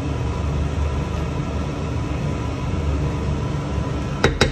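A spatula stirring cream sauce in a frying pan over a steady low rumble, then three quick sharp clicks near the end as the spatula is knocked against the pan.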